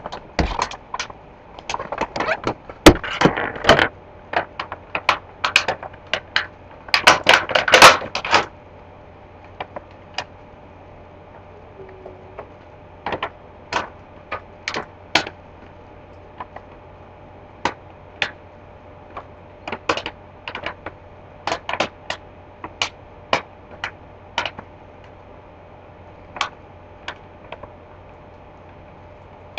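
Clear plastic clamshell toy packaging being handled and opened: irregular sharp clicks and crackles, with two busy stretches of crinkling in the first eight seconds or so, then scattered clicks.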